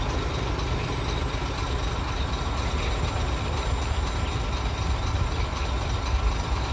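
Heavy construction machinery running steadily: the diesel engines of excavators and trucks giving a continuous low rumble.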